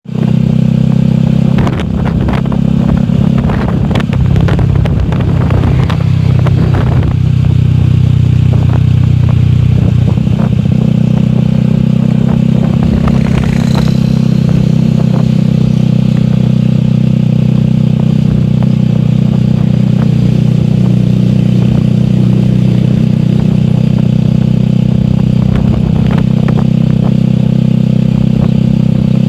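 Honda Supra Fit's small four-stroke single-cylinder engine running steadily as the motorcycle rides along a road. The note shifts about ten seconds in, and there are scattered rattles and knocks in the first several seconds and again near the end.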